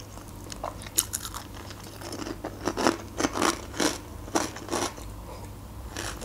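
Close-up chewing of crunchy dried bread croutons (sukhariki): a run of sharp crunches that dies down near the end.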